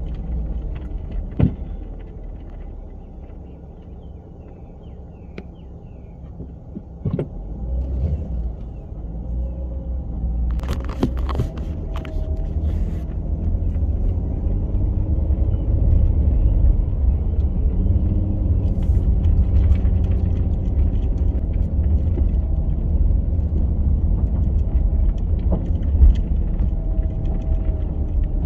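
A sedan's engine and tyres rumbling as it drives slowly along a narrow, rutted lane and onto gravel, the rumble growing louder about a quarter of the way in. A few sharp knocks come in the first half.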